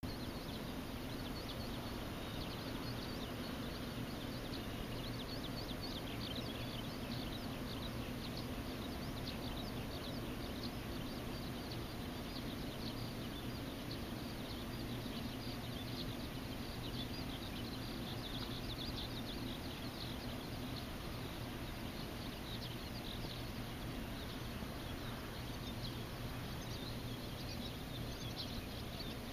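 Outdoor ambience: a continuous chorus of high, rapid chirping animal calls over a steady low rumble.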